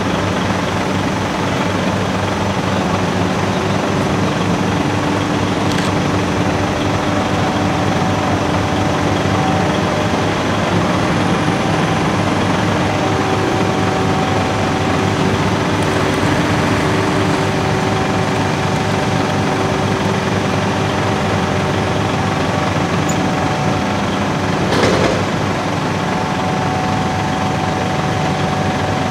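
Diesel engine of a Liebherr mobile crane running steadily under load while hoisting and swinging a Shinkansen car, with steady whining tones over it. A short louder noise comes near the end.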